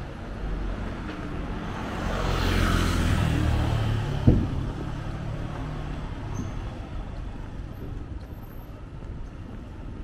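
A motor vehicle passing close by on a street, its low rumble and tyre hiss swelling and then fading over about two seconds, with a single sharp knock just after.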